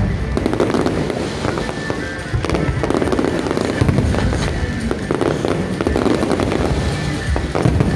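A dense fireworks barrage: many shells bursting one on top of another, with steady crackling, and no pause between the bangs.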